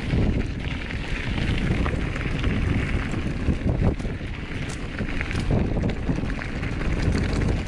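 Mountain bike riding down a dirt trail: wind buffeting the microphone over the rolling of tyres on dirt and stones, with scattered clicks and rattles from the bike over bumps.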